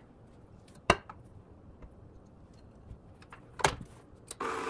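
Two sharp knocks of the glass mixing bowl and the KitchenAid Professional stand mixer being handled. Then, near the end, the mixer's electric motor switches on and runs steadily.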